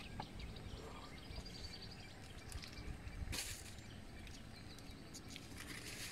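Quiet outdoor ambience with faint bird calls and a short rustle a little past the middle.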